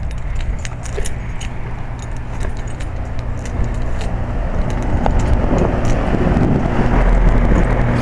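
A 2004 Lennox Elite Series HP26 3-ton heat pump running in cooling mode: a steady hum from its Copeland scroll compressor under the whoosh of the condenser fan. It grows louder as the unit is approached, with scattered light clicks.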